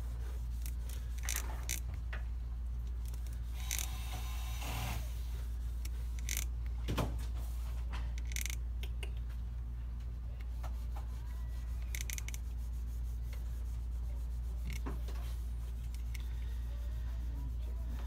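A steady low hum, with scattered faint clicks and taps from multimeter probe tips touching components on a power supply circuit board.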